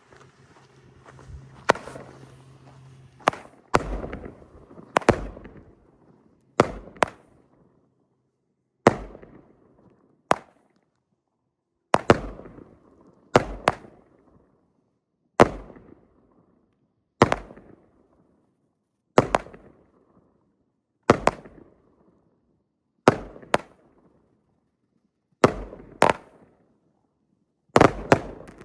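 Multi-shot consumer firework cake firing a volley of shots: a sharp report about every one and a half to two seconds, some in quick pairs. Each report trails off in a short echoing tail.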